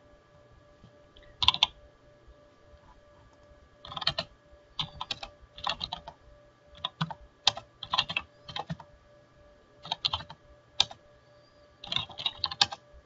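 Computer keyboard typing: one short run of keystrokes about a second and a half in, then several quick runs of keystrokes with brief pauses between them, over a faint steady hum.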